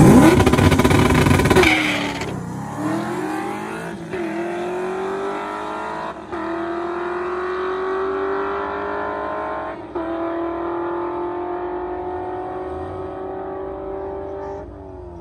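Drag-racing car launching hard at full throttle, then accelerating away down the strip. Its engine note climbs through the gears, dropping back at upshifts about two, four, six and ten seconds in, and fades with distance.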